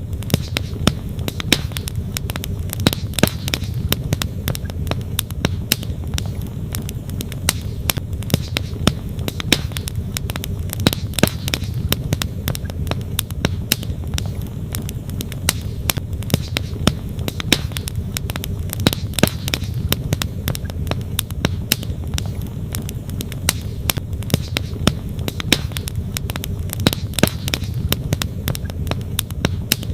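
Wood campfire crackling, with many sharp irregular pops, over the steady low rush of a flowing stream.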